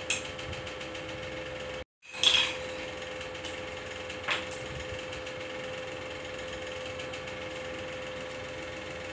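Light clinks and knocks of metal jewellery and bangles being handled while a maang tikka is put on, loudest as a short clatter a little after two seconds in, with a few smaller clicks later, over a steady hum. The sound cuts out completely for a moment just before the clatter.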